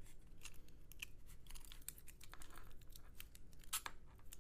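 Faint small metal clicks and scrapes from a cut-open Brinks R60 disc padlock being worked to get its key out, with one sharper click late on.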